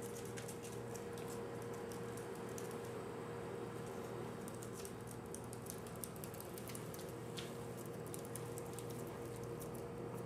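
Guinea pig's claws clicking and pattering on a hard floor as it scurries, in quick irregular ticks, over a steady low hum.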